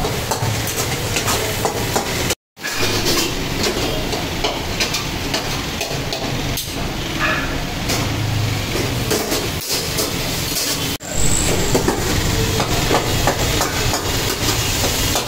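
Commercial kitchen clatter: metal spatulas knocking and scraping in iron karahi woks over the sizzle of mutton frying and a steady rumble from the gas burners. The sound drops out briefly about two and a half seconds in.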